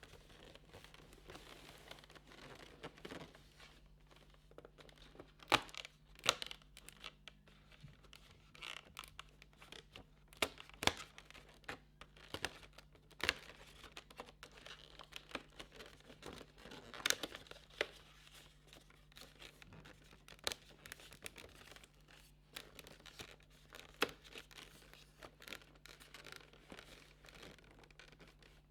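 Advent calendar packaging being opened by hand: tearing and crinkling with scattered sharp clicks and taps, fairly faint.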